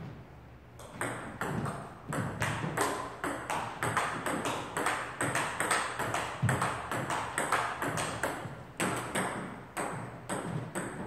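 Table-tennis rally: a celluloid-type ball clicking sharply off rubber-faced bats and bouncing on the table, about two to three hits a second.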